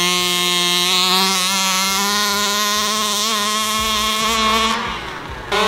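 A large RC car's 36cc two-stroke petrol engine running at high, steady revs as the car speeds across dirt. Near the end the engine note drops away for about half a second, then comes back climbing.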